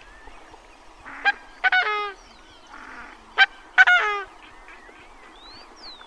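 Coscoroba swan calling twice, each call a short sharp note followed by a longer, richer note that falls in pitch at its end: the 'coscoroo' call that gives the bird its name.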